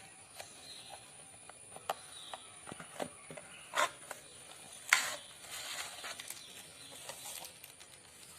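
A power bank's retail box and packaging being opened and handled: scattered clicks and taps with rustling, and a louder crinkle about five seconds in.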